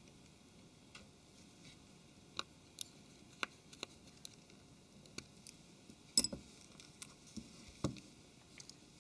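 Small, scattered clicks and taps of a precision screwdriver turning a tiny screw into a Samsung Galaxy S4's plastic frame, and of small phone parts being handled. The loudest tap comes about six seconds in.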